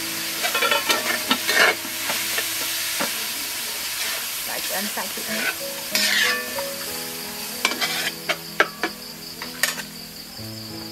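Ground pork sizzling in a wok over a wood fire while a metal spatula stirs and scrapes it, with repeated clinks of the spatula against the pan.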